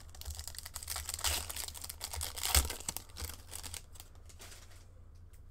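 A hockey card pack's foil wrapper crinkling and tearing as it is opened by hand, with the sharpest crackle about two and a half seconds in. The rustling fades to light handling in the last second or so.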